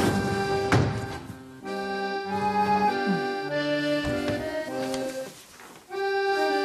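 Background music: a slow melody of held notes over sustained chords. It thins out briefly twice, about a second and a half in and again near the end.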